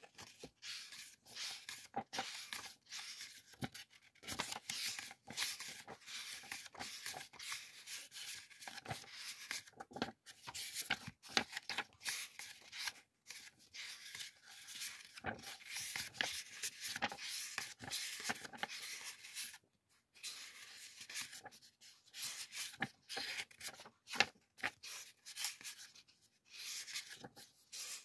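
Hands flipping through a pad of printed background paper sheets: sheets rustling and rubbing against one another in rapid, irregular strokes, with a few short pauses.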